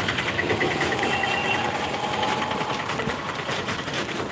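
An engine idling with a fast, even clatter.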